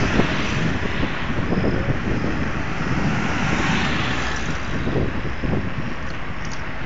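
Steady rushing and rumbling of a bicycle being ridden on a paved road: wind buffeting the microphone, together with tyre and road noise.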